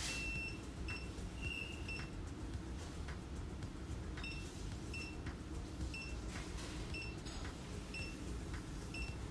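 Xiaomi Mi Electric Scooter Pro 2 beeping short, high electronic beeps, repeating about every half to three-quarters of a second, while it waits to be paired with the Mi Home app over Bluetooth.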